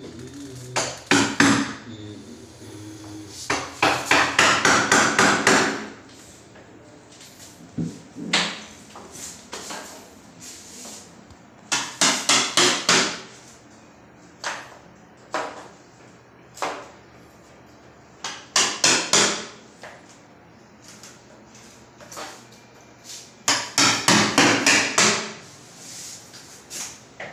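Hammering: runs of quick, sharp blows lasting a second or two each, several seconds apart, with a few single blows in between.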